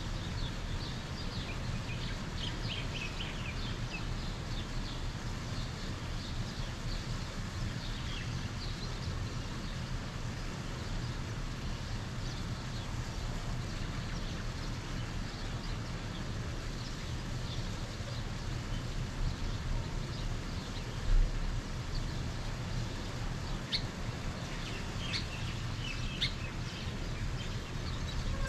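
Birds chirping on and off over a steady low outdoor rumble, the chirps coming in clusters near the start and again near the end. A brief low thump stands out about three-quarters of the way through.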